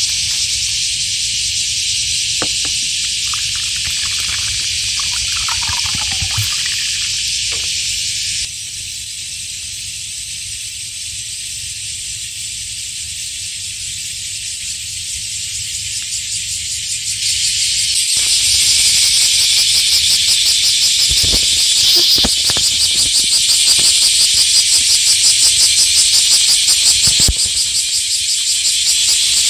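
A dense summer chorus of cicadas: a steady, high-pitched shrill buzz with a fine pulsing texture. It dips a little about eight seconds in and swells louder about seventeen seconds in.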